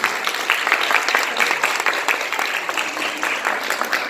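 A group of people applauding, many hands clapping together.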